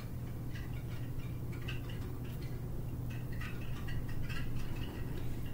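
Light, irregular clicks and taps of a makeup brush and plastic eyeshadow palette being handled, over a steady low hum.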